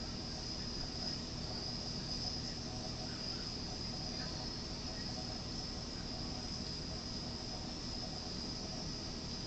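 Crickets trilling steadily in the background as one unbroken high-pitched band, over a low steady hum.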